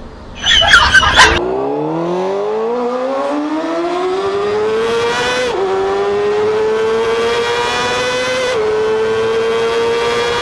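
Car engine sound effect accelerating through the gears: the engine pitch climbs steadily, falls back at a gear change about halfway through and again a few seconds later, then climbs on. It is preceded by a brief loud burst of noise about half a second in.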